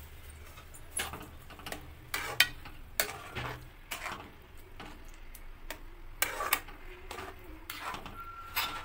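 Metal spatula scraping and clinking against a metal kadhai while stirring grated carrots into milk for gajar ka halwa, in irregular strokes about twice a second.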